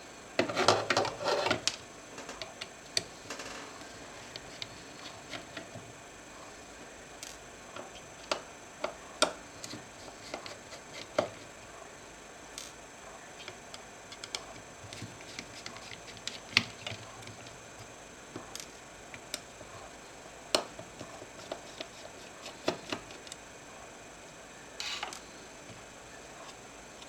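Irregular clicks and taps of small laptop parts and tools being handled during disassembly, with a louder clatter about a second in and a short rattle near the end.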